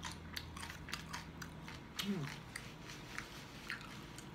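Close-up chewing of crispy fried pork skin from lechon kawali, with irregular sharp crunches as it is bitten and chewed.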